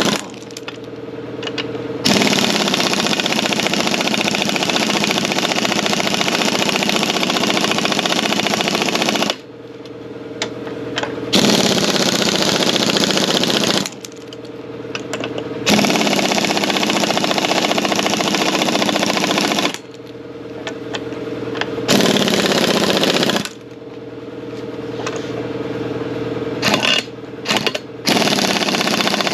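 Impact wrench hammering in long runs of several seconds, stopping and restarting about five times, while a nut is run to take tension off the strut's upper mounting point.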